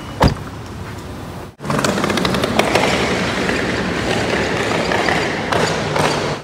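Airport curbside background noise with a single sharp thud about a quarter second in. The sound cuts out abruptly about a second and a half in and comes back as a louder, steady rushing noise dotted with many small clicks and rattles.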